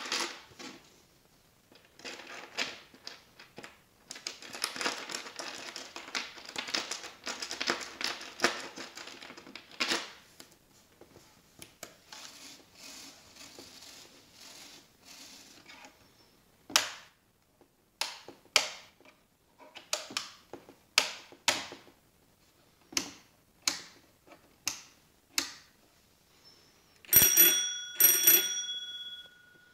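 Small hard parts of a homemade busy board rattled and scraped by hand, then a run of about ten sharp clicks roughly a second apart. Near the end a child's bicycle bell is rung twice and rings out, the loudest sound here.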